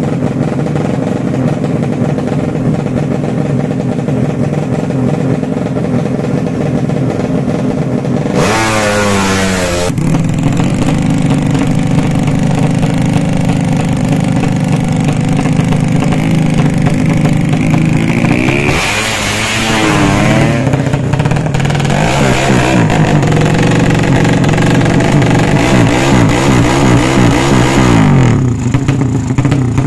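Drag-race underbone motorcycle with a 200cc engine and open racing exhaust, running loud and being revved. The revs sweep up and drop sharply about a third and two thirds of the way through, and the throttle is blipped rapidly near the end.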